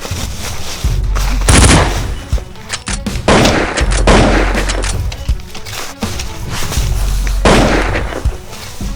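Several loud bursts of gunfire sound effects, three of them the loudest, over background music with a steady bass.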